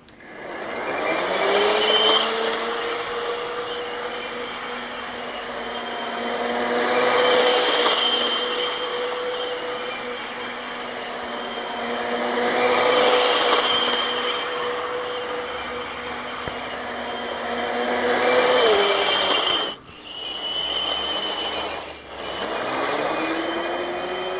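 OO gauge model Class 170 Turbostar's small electric motor whining as it runs round the track, with the wheels rattling on the rails. The whine rises in pitch as it speeds up about a second in, then swells and fades as the train passes close about every five to six seconds. Near the end it falls, cuts out twice, then rises again as the train starts off.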